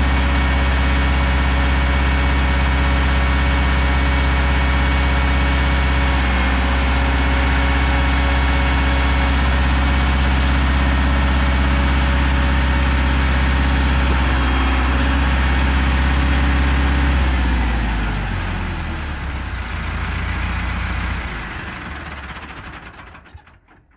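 Massey Ferguson 274 4x4 diesel tractor engine idling steadily. A little over two-thirds of the way through its pitch sinks and the sound dies away to nothing.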